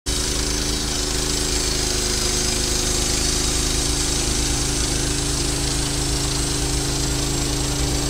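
Woodland Mills HM126 portable bandsaw mill running at a steady, unchanging throttle, its engine and band blade sawing along a log as the head is pushed down the track.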